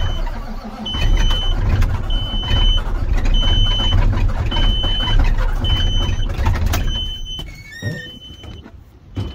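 Semi-truck diesel engine running just after a cold start, a heavy low rumble with a short high warning beep repeating about every second over it. The engine noise falls away about seven seconds in, followed by a brief gliding squeal and a thump near the end.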